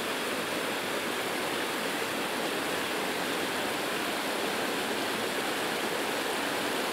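River water rushing steadily, an even hiss.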